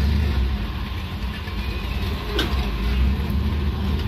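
Steady low rumble of motor vehicles, with a faint click about two and a half seconds in.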